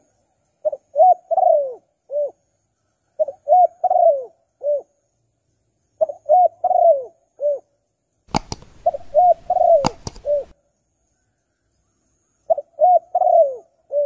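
Spotted dove cooing: five phrases of four or five coos each, repeated about every three seconds, the longest coo in each phrase dropping in pitch and a short separate coo closing it. Partway through, a burst of hiss with two sharp clicks runs under one phrase.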